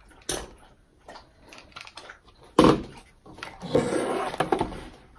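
Hard plastic shell of a Fisher-Price Laugh & Learn Dance and Play Puppy toy being pulled apart and handled. A few light clicks, then a sharp plastic knock about two and a half seconds in, followed by about a second of scraping and rattling.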